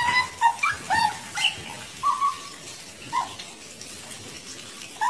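Otters giving short, high squeaking calls while begging for fish held out by hand: several quick squeaks in the first two seconds, then one more a little after three seconds.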